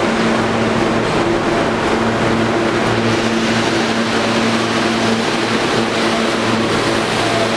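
Kawasaki R160B subway train moving past along the platform: a steady rumble of wheels on rail with an even motor hum.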